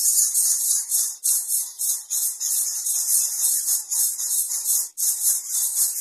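Greater coucal nestlings begging with harsh, hissing rasps, repeated in short bursts a few times a second.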